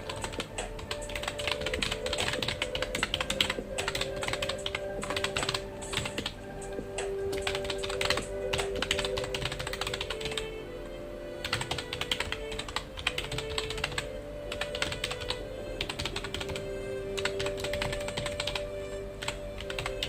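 Computer keyboard typing: rapid, irregular keystrokes in quick runs, with a short pause about halfway through. Soft background music with long held notes plays under the typing.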